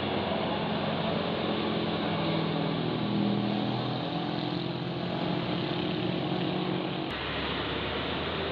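A tour bus's diesel engine pulling up a steep climb, a steady engine drone. The sound changes abruptly about seven seconds in.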